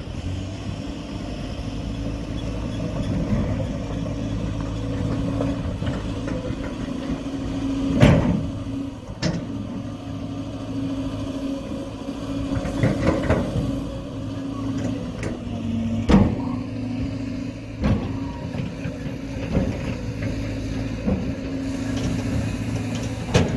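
Heavy diesel construction machinery, an excavator and dump truck, running steadily, with several sharp knocks spread through.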